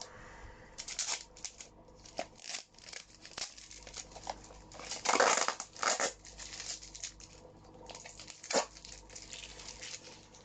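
Packaging being handled and torn open, crinkling and rustling in irregular bursts, with a louder stretch of rustling about five seconds in and a sharp crackle a few seconds later.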